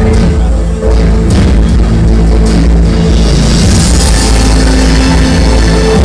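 Loud dance music played through a sonidero's large sound system, with heavy, continuous bass and a brighter, hissy swell in the middle.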